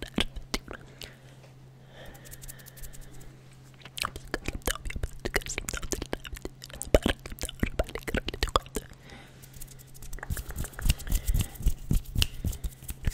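Fast ASMR mouth sounds and hand sounds made right at the microphone: rapid runs of sharp clicks and smacks, broken by a couple of quieter pauses, over a steady low electrical hum.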